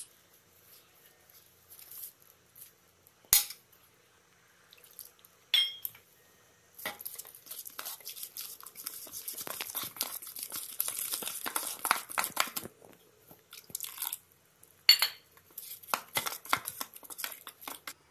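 Metal spoon stirring flour and water into a batter in a stainless steel bowl: a few sharp clinks of the spoon against the bowl, and a stretch of rapid wet scraping in the middle.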